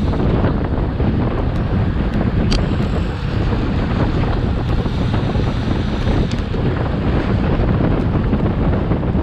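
Steady wind noise buffeting the microphone of an action camera riding along with a road cycling bunch at speed, with a faint click about two and a half seconds in.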